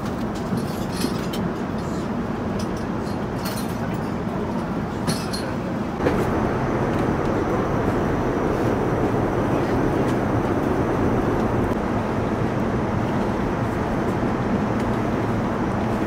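Steady cabin noise of an Airbus A350-900 in cruise: an even rushing of airflow and engines. A few faint clicks and taps come in the first five seconds, and about six seconds in the noise becomes a little louder and fuller.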